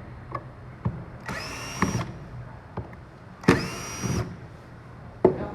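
Handheld electric drill-driver running in two short bursts, each spinning up to a steady whine and stopping sharply, with a few clicks and a sharp knock near the end.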